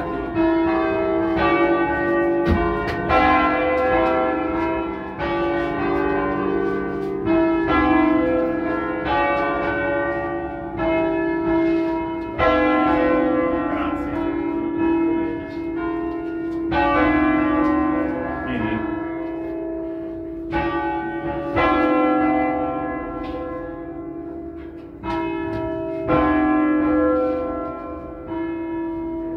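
A set of five bronze church bells (Barigozzi, 1940) rung by rope, heard from inside the belfry. Several bells strike in irregular succession, about a stroke a second, their long ring overlapping.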